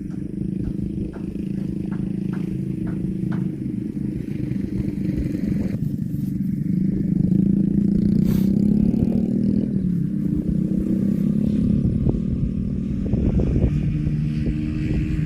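A motor running steadily, a low hum that shifts a little in pitch, with faint ticks about three a second in the first few seconds.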